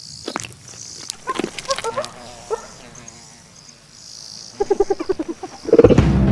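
Steady high buzz of an insect chorus in the grassland, with a few faint short calls and a quick run of low pulses a little before the end. Near the end, loud soundtrack music comes in.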